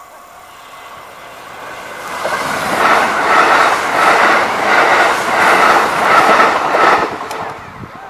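Kintetsu limited express electric train passing close by. It builds as it approaches and is loud for about four seconds, with an even, rhythmic clatter of wheels over the rail joints, then fades near the end.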